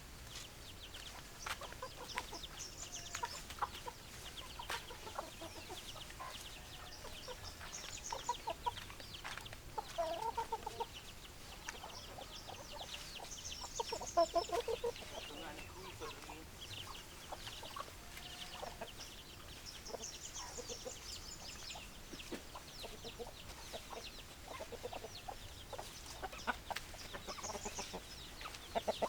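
Chickens clucking in short calls scattered throughout, with bursts of high-pitched chirping every few seconds.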